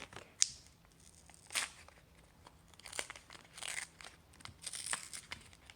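Crinkling and tearing of a Pokémon trading-card pack's wrapper being worked open by hand, in several short bursts, the longest about three and a half seconds in.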